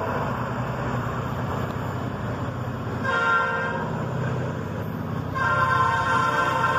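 Diesel locomotive horn sounding a chord in a short blast about three seconds in, then a longer blast near the end, over the steady rumble of a passing train. The short-then-long pattern is the close of the grade-crossing signal.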